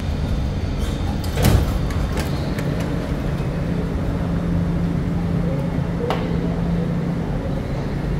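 Subway train's sliding doors opening with a loud whoosh and clunk about a second and a half in, over the low rumble of the train and station. A steady low hum follows and stops a little before the end.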